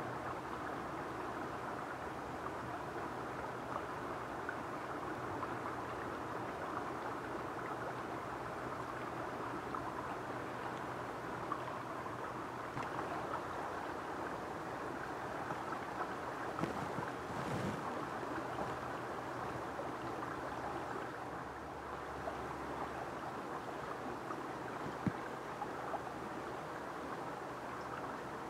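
Steady rush of flowing river water, with a brief louder swish about two-thirds of the way through and a few faint ticks.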